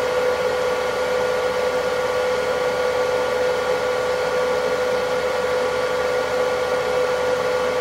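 Bench power supply running noisily while delivering close to 10 amps: a steady whine over an even hiss.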